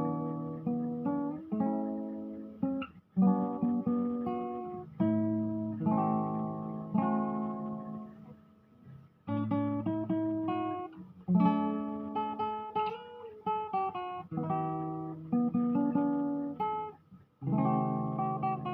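Solo acoustic guitar played fingerstyle: a plucked melody over bass notes and chords, each note ringing and decaying. The playing thins out and fades about halfway through, then picks up again.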